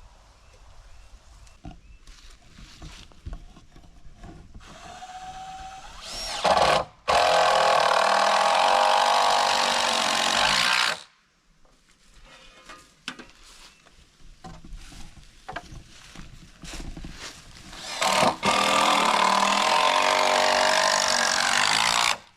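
A power drill running in two long spells of about five and four seconds, a steady motor whine with quiet knocks on wood between them.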